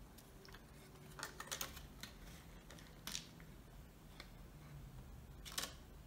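Faint, scattered clicks and crackles of a clear plastic clamshell package being handled and opened to take out laptop RAM modules, with the sharpest click about five and a half seconds in.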